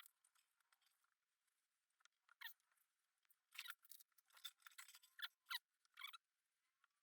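Faint scratchy strokes of fine sandpaper being rubbed over a metal Harley pushrod cover tube to shine it. The strokes come in a quick run from about two and a half to six seconds in.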